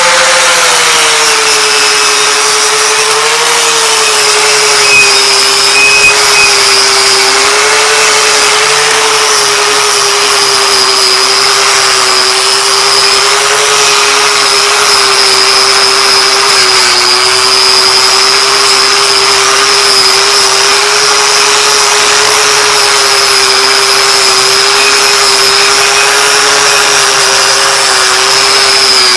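Electric power tool running steadily at speed with a wire brush scrubbing the metal housing of a Gravely cultivator: a steady motor tone and high whine under the hiss of wire bristles on metal.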